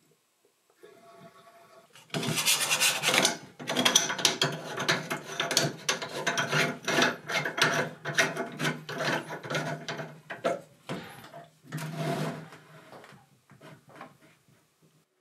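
Stainless steel side-stream filter canister being twisted on its threaded brass cap: a dense run of rasping, grinding scrapes of metal on metal. It starts about two seconds in and fades out near the end.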